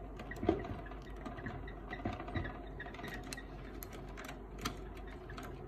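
Hands handling cables and plastic parts inside an opened laser printer: scattered light clicks and rattles over a low hum. A slightly louder click comes about half a second in and another near the end.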